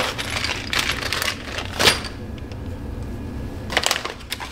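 Clear plastic parts bags crinkling and rustling as they are handled and rummaged through, with a sharp click about two seconds in.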